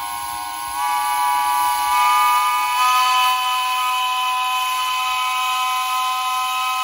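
Steam whistle of the Wells and Walsingham Light Railway's Garratt No. 6 'Norfolk Heroine' blowing one long, loud blast, several notes sounding together as a chord. The notes shift up a little a few times in the first three seconds, then hold steady.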